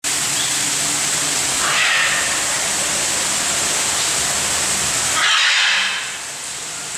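Steady loud hiss, with two short brighter sounds, one about two seconds in and one a little after five seconds.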